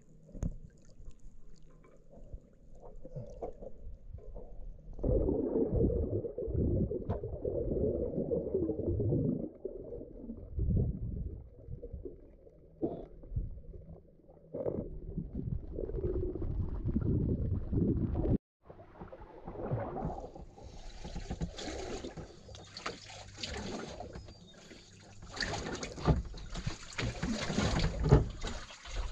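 Water splashing and sloshing around a small boat out on open water. After a brief break about two-thirds of the way through, gusty wind hiss joins it.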